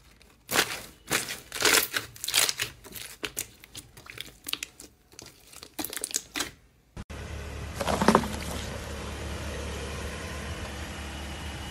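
Hands squeezing and kneading a clear glitter slime packed with air bubbles, making a quick series of sharp crackles and pops as the trapped air is pressed out. About seven seconds in, this gives way to a steady hum and hiss with one louder crackle.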